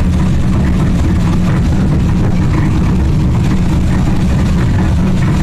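The Alligator engine running and driving the paddle wheels, making a loud, steady low rumble that does not change.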